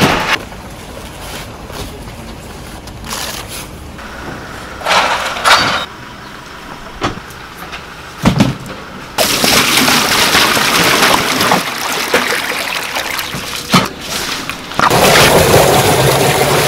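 A few knocks and clanks of stainless steel pots and gear being handled. Then, from about nine seconds in, water pours from a jug into a stainless steel pot as a steady splashing rush that gets louder near the end.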